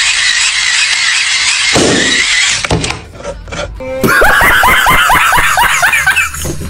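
Hand-crank dynamo phone charger whirring with a wavering whine as it is cranked, cutting off about two and a half seconds in. After a short gap, a man's rapid, high-pitched shrieking laughter.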